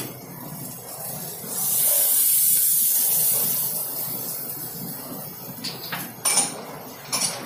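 Cooking cream poured into a hot stainless pan of sautéed vegetables, hitting the pan with a loud sizzling hiss for about two seconds that then dies down to a gentle simmer. A few short knocks of the spoon against the pan near the end.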